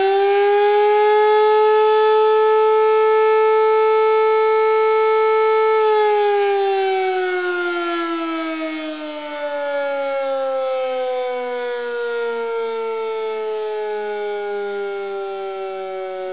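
A siren wailing: it holds one steady note for about six seconds, then slowly winds down in pitch.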